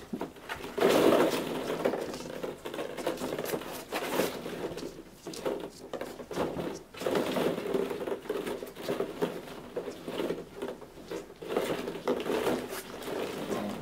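Hollow plastic ball-pit balls clattering and rattling against each other and the plastic tub, an irregular run of small knocks and clicks, as Havanese puppies scramble through them.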